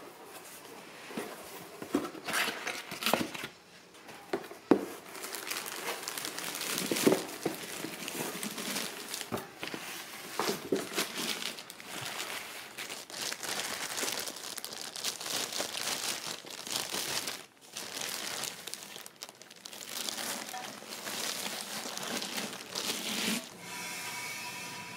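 Cardboard box flaps opened and a plastic bag crinkling as it is pulled off a figurine, with a few sharp knocks from handling the box.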